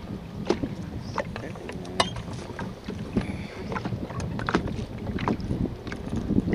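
Low, steady wind rumble on the microphone with many small clicks and knocks of fishing tackle being handled in the boat, the sharpest about two seconds in.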